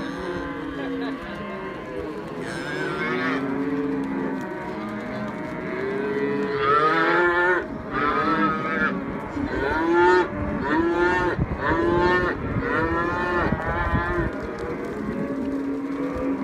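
Cattle bawling, calves among them. Many calls overlap, with a run of louder calls through the middle.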